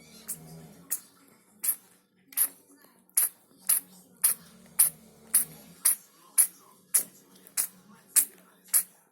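A sick kitten sneezing over and over: a long run of short, sharp sneezes, nearly two a second and evenly spaced.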